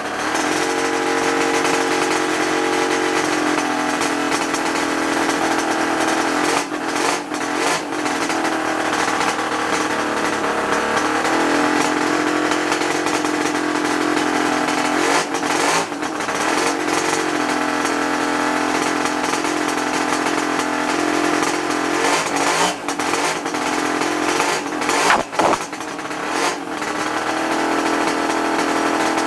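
1975 Suzuki GT550's air-cooled two-stroke three-cylinder engine running after restoration. Its speed shifts up and down a few times, with several brief stumbles in the sound.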